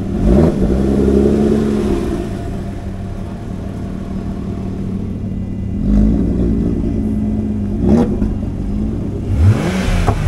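Sports car engines idling steadily, blipped up in short revs several times, once near the start and three times in the second half.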